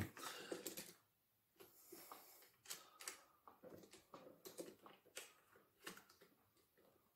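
Faint, irregular clicks and knocks of a quick-release bipod being handled and pushed onto a rifle's Picatinny rail.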